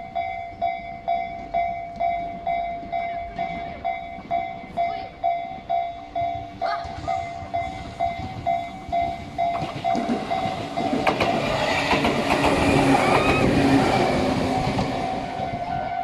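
Railway level-crossing bell ringing steadily about twice a second. From about ten seconds in, a passing electric train's running noise and wheel clatter swell up over the bell, loudest a few seconds later.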